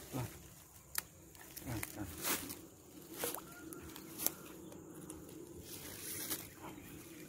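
A hooked fish splashing and thrashing at the water surface on a bamboo pole's line as it is being lifted out, in a handful of short, separate splashes.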